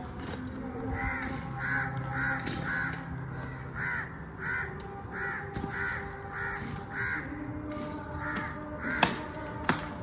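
A crow cawing over and over, about a dozen short caws roughly half a second apart. Two sharp knocks come near the end.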